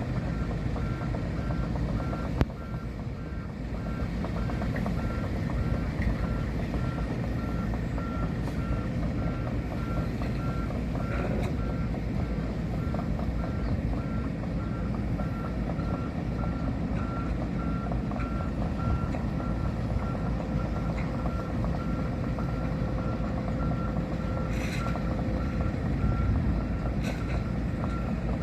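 Heavy machinery's diesel engine running with a steady rumble under an evenly repeating high beeping warning alarm. One sharp knock about two seconds in.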